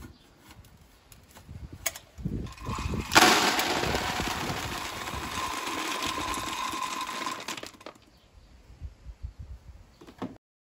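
Wood pellets pouring out of a Traeger Pro Series 575 pellet hopper's dump chute into a plastic storage box, a steady rush that starts suddenly about three seconds in, lasts about four and a half seconds, then trails off into a few scattered pellets. A click and a few knocks come first.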